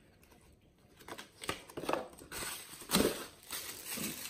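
Clear plastic packaging crinkling and rustling as it is handled, with a few sharper crackles, the loudest about three seconds in.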